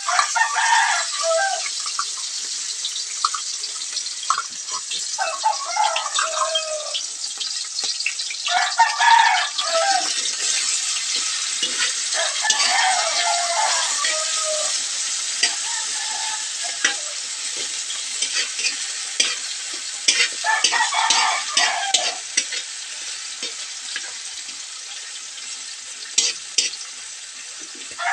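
Corned beef, onion, garlic and tomato sizzling in hot oil in a wok, with a metal spoon stirring and scraping against the pan in many short ticks. A rooster crows now and then in the background.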